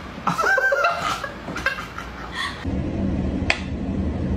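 A short pitched call in the first second, then a low steady hum and a single sharp tick from a mechanical pendulum metronome about three and a half seconds in.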